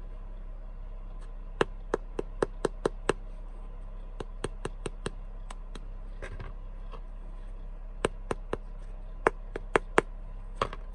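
Quick runs of sharp taps and knocks from toasted scones being handled and tapped by hand, with a rougher crumbling sound about six seconds in as one is broken open. A steady low hum runs underneath.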